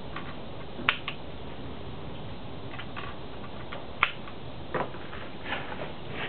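Sharp metallic clicks of a Howa .243 bolt-action rifle being handled, its bolt worked by hand. Two clicks, about one second in and about four seconds in, are louder than the rest.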